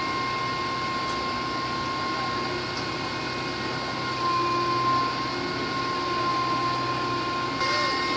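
Steady machine hum with a constant high-pitched whine, a little louder about halfway through, and a burst of hiss near the end.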